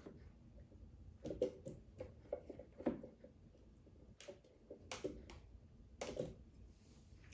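Pineapple chunks spooned from a plastic container into a blender jar: a scatter of soft, irregular thuds and spoon clicks, each a short knock.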